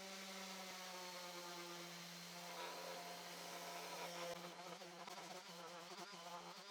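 Electric sander running with a steady, even-pitched buzz, smoothing the glued-up wood pieces.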